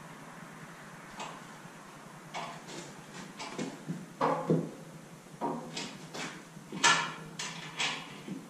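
Irregular metal clanks and knocks from a Kubota LA534 front-end loader being worked onto the B2650 tractor's mounting frame, about a dozen over several seconds, the loudest near the end.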